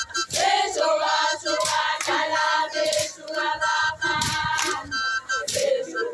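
A large group of young women and girls singing a traditional Swazi song in chorus, with sharp percussive hits among the voices.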